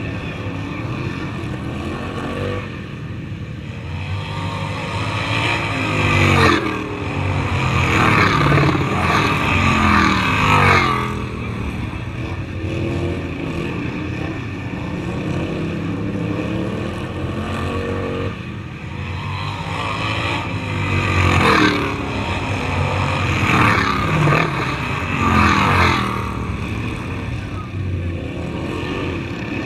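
Racing lawn mower engines running hard throughout. Twice the engines grow louder and pass close by, their pitch sliding down as they go past.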